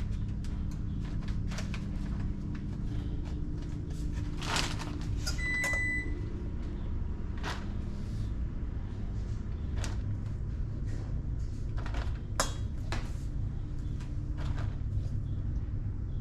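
Kitchen handling noise over a steady low hum: scattered clicks and rustles of plastic bags and utensils. About five and a half seconds in, an oven timer gives a short electronic beep, signalling that the meatloaf is done.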